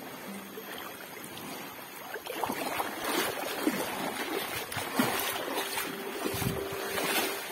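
Water splashing and dripping off a collapsible umbrella-style net fishing trap as it is lifted out of shallow water, growing louder about two seconds in.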